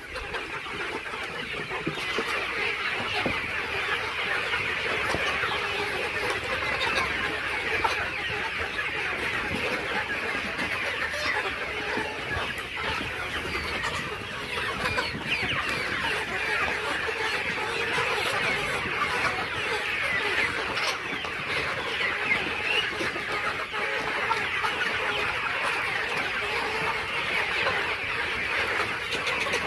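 A flock of young layer chickens chirping and clucking continuously, many birds calling at once in a steady, dense chorus.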